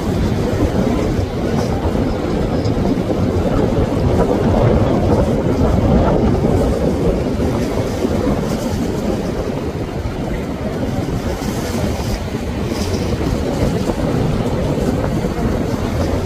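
Motorboat engines running in a steady low rumble, swelling slightly a few seconds in.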